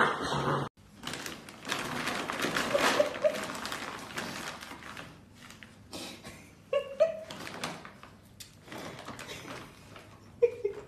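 A reusable plastic shopping bag rustling and scraping over a wooden parquet floor as a puppy tugs it by its handle, in scratchy, uneven bursts. A few short, high vocal sounds come through in between.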